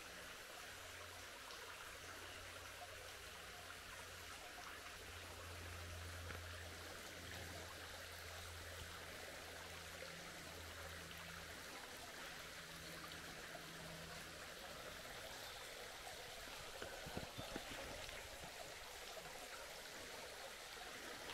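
Creek water running steadily in the background, with a few soft knocks near the end.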